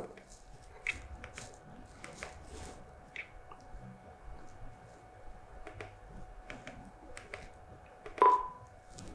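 Faint clicks of buttons being pressed on a Furuno LH-5000 loud hailer control unit. Near the end comes a short, single beep from the unit as a key is pressed with its key beep switched on.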